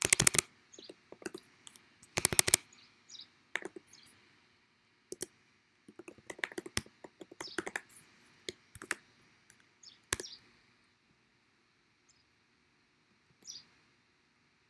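Typing on a computer keyboard: two quick rattling runs of keystrokes near the start, then scattered single keystrokes and short clusters, pausing for a few seconds near the end before one last brief tap.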